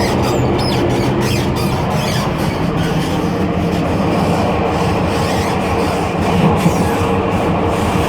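Running noise in the gangway between cars of a Taiwan Railways EMU800 electric multiple unit: a loud, steady rumble of wheels on rail with a low hum, and short rattles and squeaks from the car connection in the first couple of seconds.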